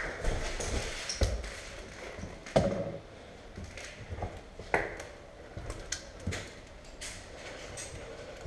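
Scattered light knocks and taps in an echoing room, a few louder ones a second or two apart: footsteps on a tiled floor and the rattle of gear as an airsoft player moves through the building.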